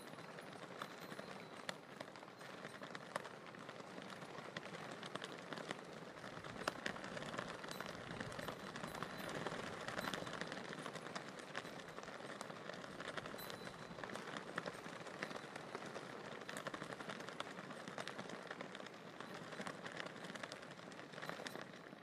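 Tibetan prayer flags flapping in the wind: a steady rustling flutter of cloth with many small sharp snaps, swelling a little around the middle.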